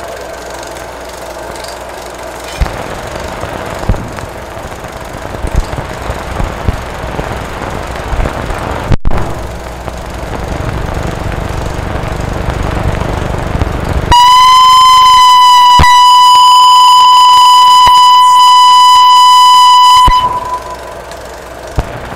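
Crackly, noisy film soundtrack with scattered clicks and pops. About two-thirds in, a very loud, steady test tone begins abruptly, holds for about six seconds and cuts off sharply.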